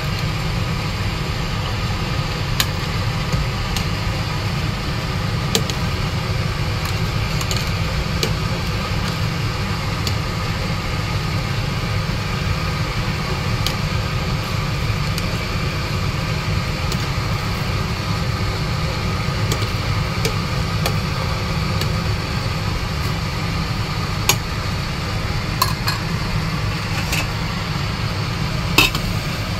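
A steady low rumbling hum, with a few light clinks of a metal ladle against the steel cooking pot as the greens are stirred.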